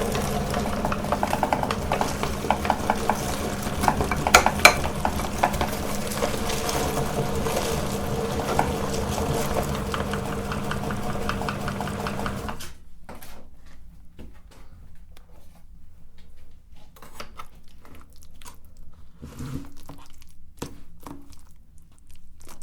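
Electric meat grinder running steadily with wet squishing and clicking as banana is forced through it; the motor cuts off suddenly a little over halfway. After that come quieter scattered clicks and knocks of handling.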